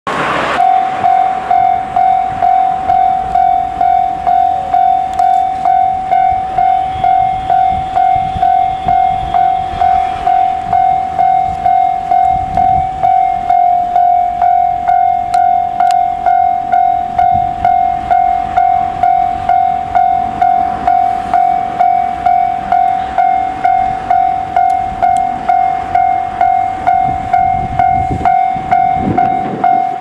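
Japanese level-crossing warning bell ringing in a steady, even rhythm of repeated single-pitched dings, sounding while the barriers are down for an approaching train.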